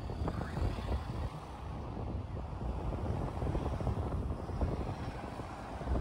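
Wind buffeting the microphone: a low, choppy rumble that swells and dips irregularly.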